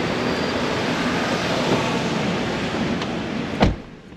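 Steady rushing noise, even across high and low pitches, ended by a sharp thump about three and a half seconds in, after which it drops much quieter.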